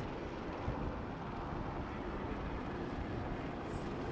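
Steady aircraft engine noise, heaviest in the low end.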